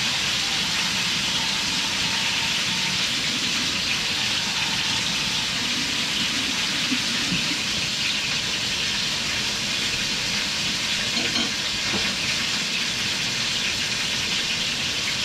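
A steady, even hiss of kitchen noise with a couple of faint knocks about eleven and twelve seconds in.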